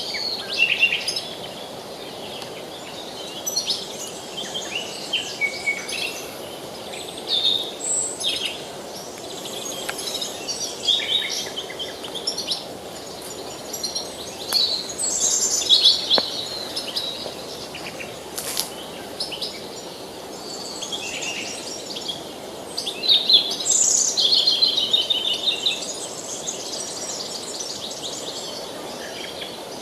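Several wild songbirds singing and calling in overlapping short chirps and trills, over the steady rush of a river.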